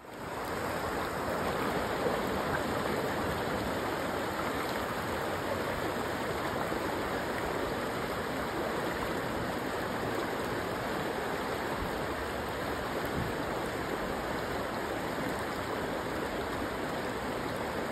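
Steady rushing of shallow river water flowing over rocks in a riffle, fading in at the start.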